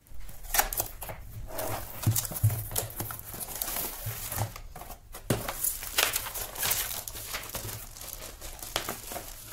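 Cardboard box being opened and a folded poster slid out and unfolded: irregular crinkling, rustling and scraping, with a few dull knocks.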